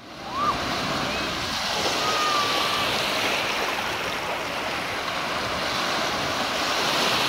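Shallow sea surf washing in over a sandy shore: a steady hiss of moving, foaming water.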